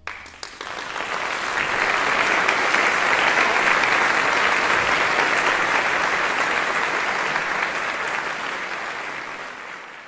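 Audience applauding, a few sharp claps at first, swelling over the first second or two, then thinning out near the end.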